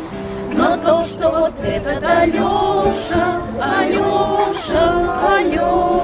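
A small group of women singing a song together to an acoustic guitar.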